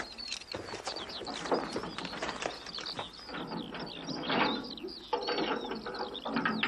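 Metallic clicking and rattling of a key working the padlock on a prison wagon's barred iron door, over birds chirping throughout.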